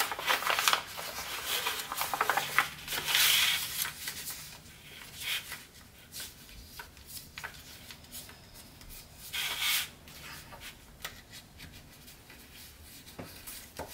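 Sheet of Tant origami paper rustling and crinkling as it is folded and creased by hand into a tessellation. Irregular rustles and crackles, loudest about three seconds in and again near ten seconds.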